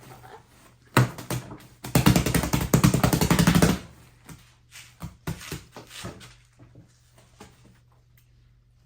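Fluffy slime being pressed and stretched to blow a bubble: a click about a second in, then about two seconds of rapid crackling and popping, followed by a few scattered soft pops that fade.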